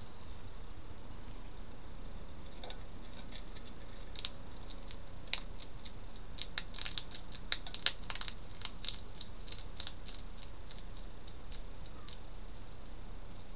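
A hedgehog eating from a food dish: a run of quick, irregular chewing and crunching clicks. They start a couple of seconds in and are thickest in the middle, over a steady hiss.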